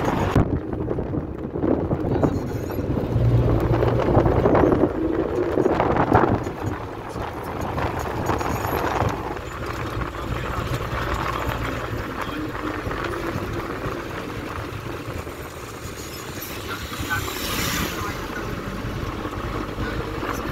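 Engine hum with tyre and wind noise, heard from inside a moving vehicle on a road. It is louder for a few seconds near the start.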